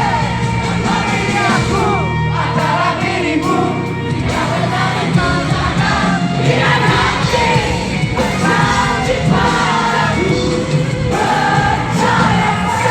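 Live rock band playing loudly through a hall PA, with a singer's voice and the audience singing along.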